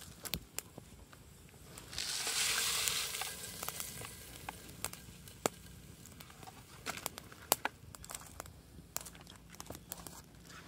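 Crinkling and rustling of a foil seasoning sachet being opened and emptied into a cooking pot. A loud rushing hiss lasts about a second and a half, starting about two seconds in, with scattered sharp clicks throughout.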